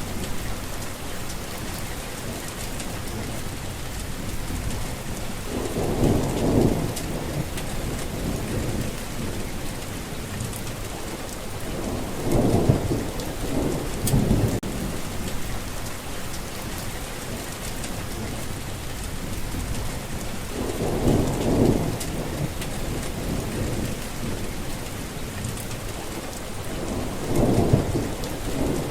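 Steady rain falling, with a low roll of thunder rising out of it about every seven seconds, four times.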